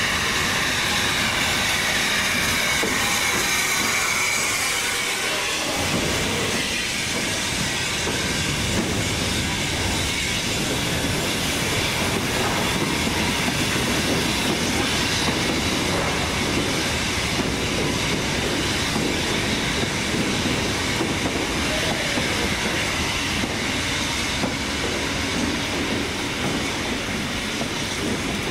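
Steam-hauled train of coaches behind Jubilee class 4-6-0 45596 Bahamas moving slowly through the station, wheels clicking over the rail joints, with steam hissing from the locomotive. The noise is steady and loud throughout.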